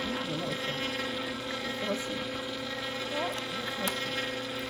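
Sharp Healsio slow juicer's motor running with a steady hum as it presses mandarin orange pieces into juice.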